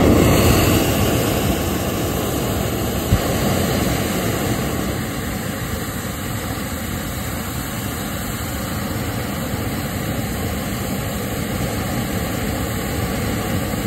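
Hot-air balloon's double propane burner firing in one long continuous blast: a loud, steady rush of flame noise that starts abruptly.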